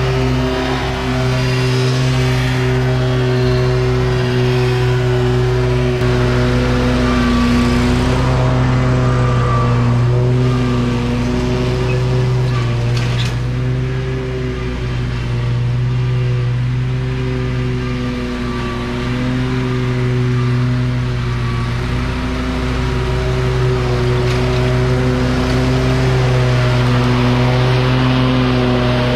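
Stand-on zero-turn lawn mower's engine running steadily while cutting grass, its pitch wavering slightly with load. It grows louder near the end as the mower comes close.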